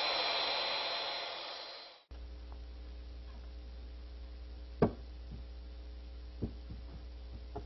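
An overhead router's running noise fades over the first two seconds and cuts off. Then comes a low steady hum with a few light wooden knocks, the loudest about five seconds in.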